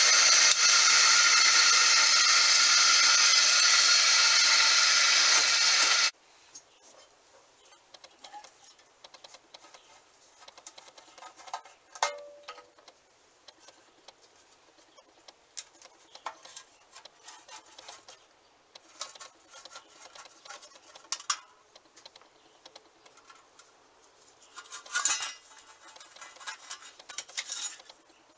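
A loud, steady rushing noise for about six seconds that cuts off suddenly, followed by light metal clinks, taps and scraping as small bench-grinder parts and a wheel guard are handled on the bench.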